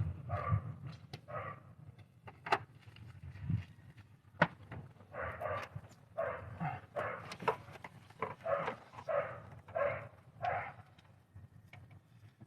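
A dog barking repeatedly, in runs of several barks about two a second with pauses between, over a few sharp clicks and knocks.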